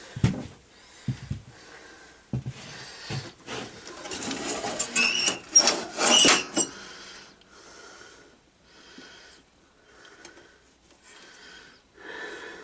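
A few knocks and a stretch of metallic clattering and scraping as parts are handled on a garden tractor, followed by heavy, even breaths about once a second from someone winded after the struggle.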